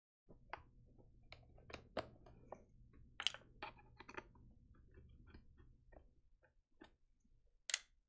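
Faint, irregular clicks and light taps of small tools and parts being handled on an electronics repair bench, over a low electrical hum that stops about two-thirds of the way through.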